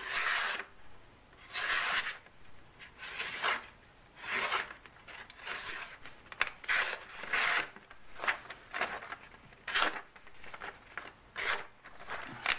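Enlan Bee folding knife's 8Cr13MoV blade slicing through paper in a sharpness test, about a dozen short rasping strokes roughly one a second. The factory edge is judged not very sharp out of the box.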